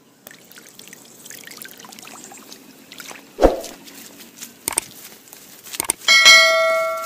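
Splashing and trickling water as a small homemade RC boat churns across a pond. Then a sharp knock and a few clicks, and about six seconds in a ringing bell chime that fades slowly: a subscribe-button sound effect.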